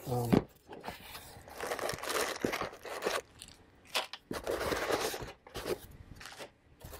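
Packaging handling: a round UFO LED grow light is pulled from its molded polystyrene foam insert in a cardboard box, with scraping, rubbing and crunching of foam and cardboard in two stretches.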